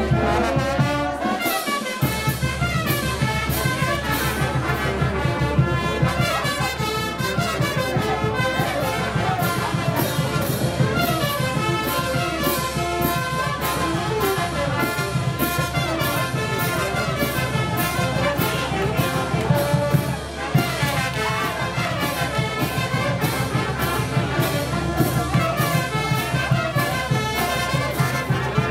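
Brass band music: trumpets and trombones playing over a steady bass line and beat.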